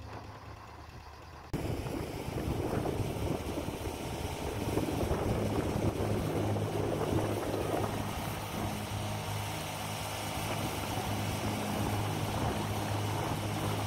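Background music fades, then about one and a half seconds in a steady engine hum starts abruptly. It is joined by a water jet spraying against the rear of a concrete mixer drum during washing.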